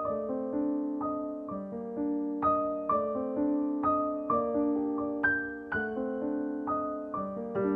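Background music: soft piano notes struck one after another in a slow melody over sustained chords.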